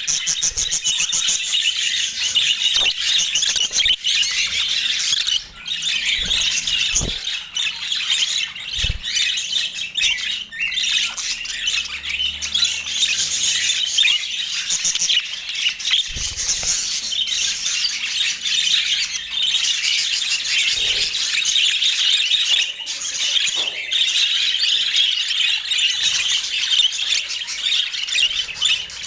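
Flock of budgerigars chattering and warbling without a break, many overlapping chirps and squawks, with a few soft low knocks.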